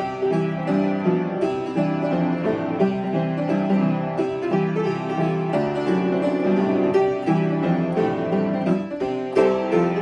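Upright piano played steadily, with many notes struck each second: a melody over chords and bass notes.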